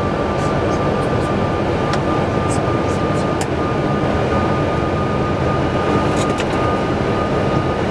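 Steady loud rush of airflow and engine noise inside a Boeing 747-400 cockpit in the climb, with a thin steady high whine over it and a few faint clicks.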